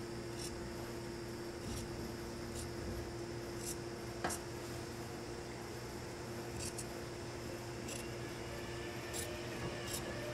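Large tailor's shears cutting through coat fabric along a pinned line: a series of irregular snips, the sharpest about four seconds in, over a steady low hum.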